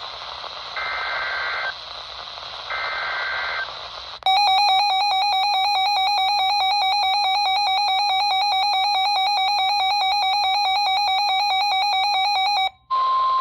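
NOAA Weather Radio alert over radio hiss: two short screeching bursts of SAME digital header data, the end of the coded alert header. These are followed by the weather radio's own alert alarm, a loud shrill buzzing tone for about eight seconds that cuts off abruptly, showing the radio has decoded a warning.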